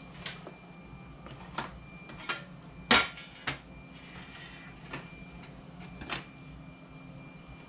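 Scattered sharp clicks and taps of Xbox 360 disc drive parts being handled and worked on by hand: about seven in all, the loudest about three seconds in, over a faint low steady hum.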